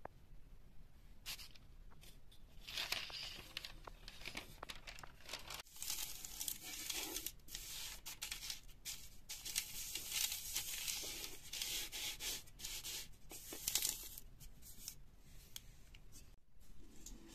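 Baking paper crinkling, rustling and tearing as it is shaped and pressed into the bottom of an oiled cooking pot, in an irregular run of crackles that starts about a second in and dies away near the end.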